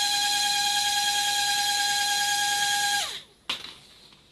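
Small electric motor and propeller of a single-blade 'maple drone' toy running with a steady high whine, then winding down near the end with a quickly falling pitch as the power is cut. A single sharp click follows shortly after.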